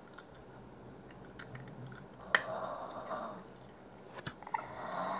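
A sharp click about two seconds in, then crunching and chewing as a hard sweet is bitten and eaten.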